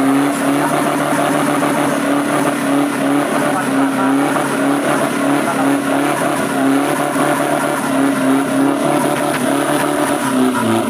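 Toyota pickup's diesel engine held at high revs, nearly steady in pitch, as the mud tyres spin and churn in deep mud with the truck bogged down.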